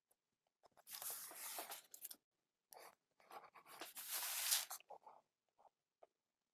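Pen strokes scratching across paper: two runs of quick strokes lasting about a second and a half each, followed by a few short, faint scratches.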